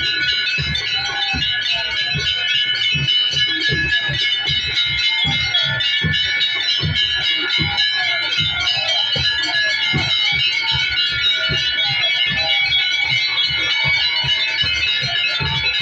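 Many brass temple bells ringing at once in a continuous clangor, over a rapid, irregular run of low thuds.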